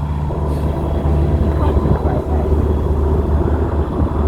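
Narrowboat's diesel engine running steadily under way against a strong current, with a deep, even drone and a rushing noise over it.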